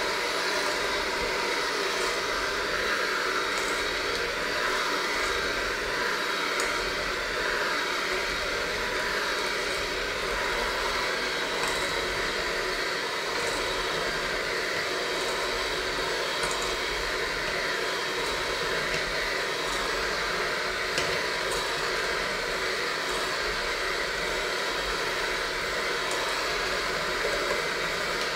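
Electric hand mixer running steadily, its beaters churning a crumbly dough in a stainless steel bowl, with a few faint ticks scattered through.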